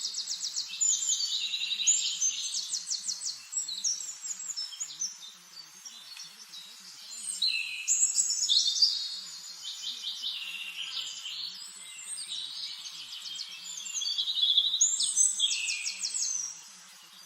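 A songbird singing loud, varied phrases of whistles and rapid trills, in bouts that recur about every seven seconds.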